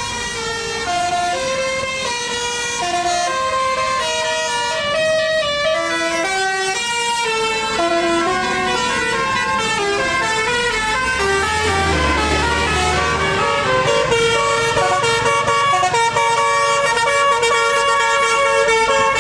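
Tour bus's basuri telolet horn playing a melody of held notes stepping up and down in pitch, with a bus engine rumbling past about twelve seconds in.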